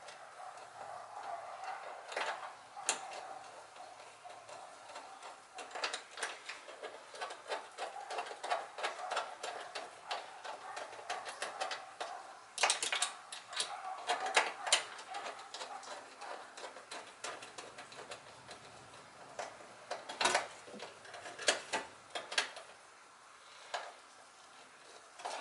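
Socket ratchet clicking in runs of quick clicks as a bolt is run down and tightened, with short pauses between runs.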